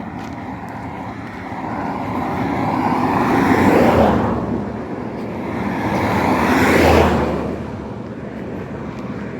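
Two road vehicles passing by one after the other, each a rising and falling rush of engine and tyre noise, peaking about four and seven seconds in, over steady traffic noise.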